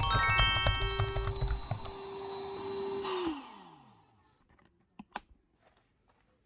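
Small electric motor running steadily, then switched off about three seconds in, its pitch falling as it winds down. A few faint clicks follow.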